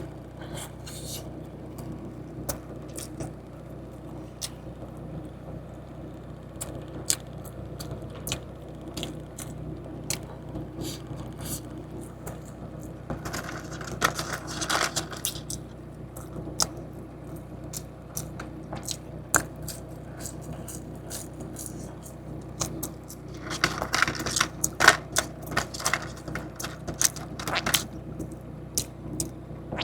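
Someone eating fast food and handling its packaging: scattered clicks and crinkles, with two denser bouts of paper or wrapper crackling, about halfway through and again a few seconds before the end, over a steady low hum.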